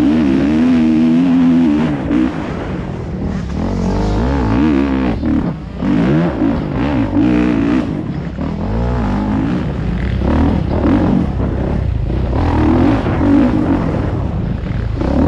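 Dirt bike engine being ridden hard, its revs rising and falling over and over with the throttle.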